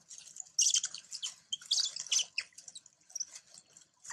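A rapid run of short, high-pitched chirps and squeaks, densest in the first half, with crackly clicks among them.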